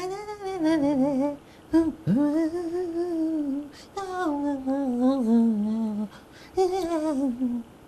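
A man singing unaccompanied into a microphone: four long, wavering, wordless phrases, each sliding down in pitch, with short breaths between them. It is an opening alaap, setting the tune before the song.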